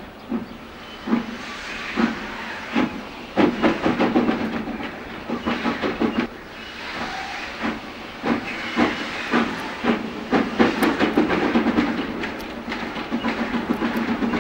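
Steam locomotive pulling a train under heavy black smoke, its exhaust beats coming as sharp chuffs in uneven clusters over a steady hiss of steam.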